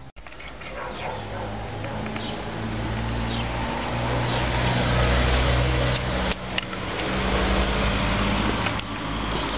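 A motor running steadily with a low hum, growing louder over the first few seconds, with a few short knocks midway.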